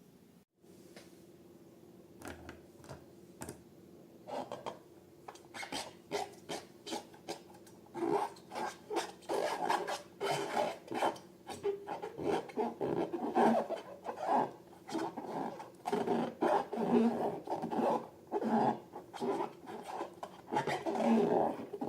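Rubber balloons and slime being handled: irregular rubbing and rasping strokes, sparse at first and coming thick and louder from about eight seconds in.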